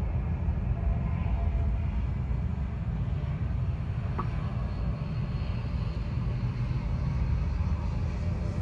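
Airliner engines running at taxi power: a steady low rumble with several steady whining tones above it.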